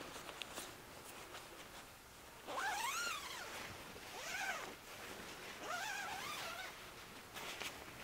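Zip on an Amok hammock's mesh bug net being pulled open in three strokes, each a buzzing whine that rises and falls in pitch as the pull speeds up and slows down. The first pull is the loudest.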